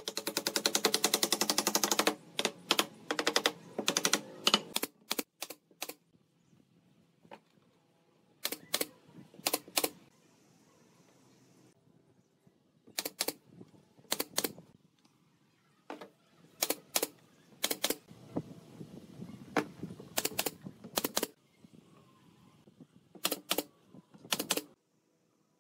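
Pneumatic brad nailer firing nails into wooden chair slats: sharp single shots, mostly in quick pairs, with a brief hiss of air about ten seconds in. It opens with a fast run of knocks about two seconds long.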